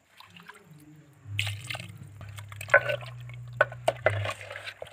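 Water splashing and dripping in a clay pot of chicken curry, then a metal ladle stirring and clinking against the pot. A steady low hum runs through the middle of the clip, from about a second in to about four seconds.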